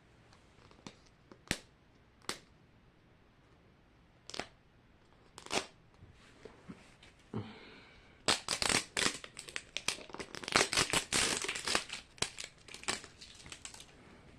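Plastic wrapping on a Mini Brands capsule ball being picked at, crinkled and torn while someone struggles to open it. A few scattered clicks and taps come first, then about halfway through a dense run of crinkling and tearing lasts several seconds.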